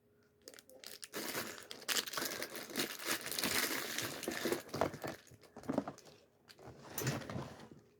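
Lego advent calendar packaging being crinkled and torn open: dense rustling and ripping starting about a second in, thinning out with a few more crackles near the end.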